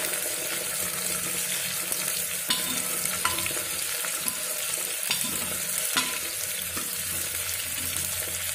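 Half-boiled chickpeas sizzling in hot mustard oil in a pressure cooker while being stirred with a ladle, which knocks against the pot a few times.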